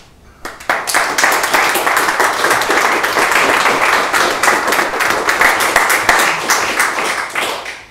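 Audience applauding: many hands clapping together, starting about half a second in and dying away near the end.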